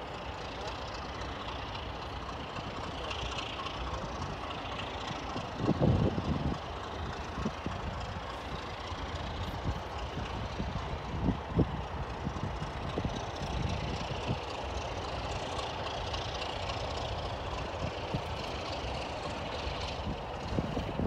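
Distant railway locomotive running as it slowly approaches, a steady low rumble. A few short low thumps break through, the loudest about six seconds in.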